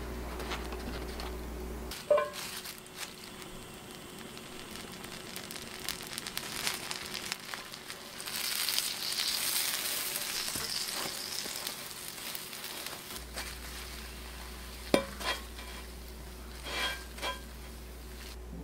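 Butter sizzling in a hot pan as a cut hamburger bun toasts in it, the sizzle strongest around the middle, with a few sharp knocks.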